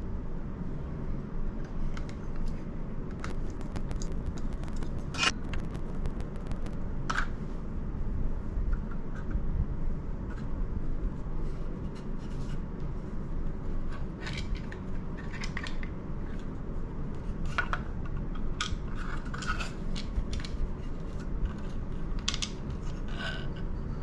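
Phillips screwdriver working the small screws of the mount's motor cover, and the cover being lifted away: scattered light clicks, ticks and scrapes of metal and plastic over a low handling rumble.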